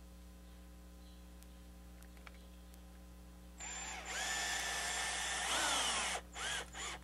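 DeWalt cordless drill boring into a wooden rocker, its motor whining steadily for about two and a half seconds before winding down. Then come a couple of short bursts as it drives a square-head wood screw, which spins in the soft, porous wood without gripping well.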